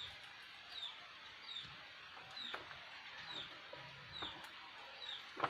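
A bird chirping over and over, short high falling notes a little more than once a second, with a few knocks from handling a box, the loudest near the end.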